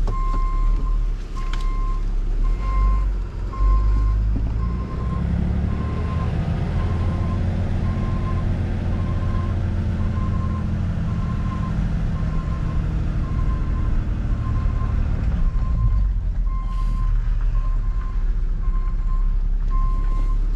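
Tow truck backing up: its reversing alarm beeps about once a second over the running engine, which revs up in the middle and settles back down.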